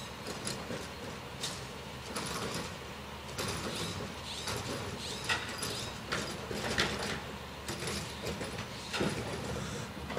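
Garbage truck collecting yard waste bins: its engine running with a low steady hum, and irregular clanks and creaks from its lifting gear and the bins.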